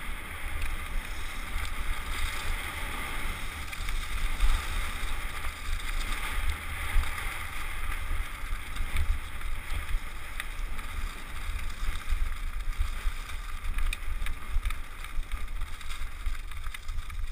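Wind rumbling on a helmet-mounted camera's microphone during a mountain bike descent, over a steady hiss of tyres rolling on a gravel trail. Scattered small clicks and ticks come from stones and the bike.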